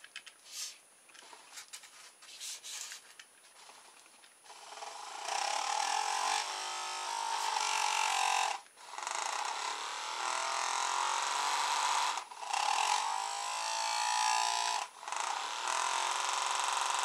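Small low-current DC motor salvaged from a solar garden ornament, running on solar-panel power through a radio-control receiver. It starts whirring steadily about four seconds in and cuts out briefly three times. It runs, so the panel now gives this motor enough power.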